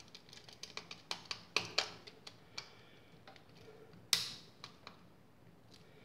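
Screwdriver turning and tightening the brass terminal screw on a GFCI receptacle: a string of irregular small clicks and ticks, the sharpest about four seconds in.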